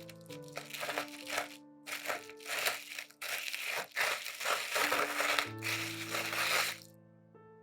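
Soft piano music under a run of irregular crinkling, crunching noises, several in a row over about seven seconds.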